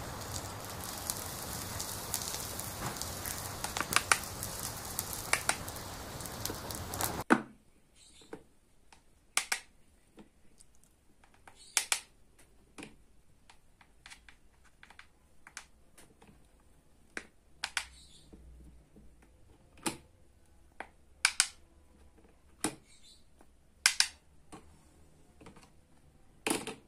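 A steady sizzling hiss that cuts off abruptly about seven seconds in, then scattered sharp clicks and taps of plastic toy kitchen pieces: a toy knife, tongs and plate handled with clay balls.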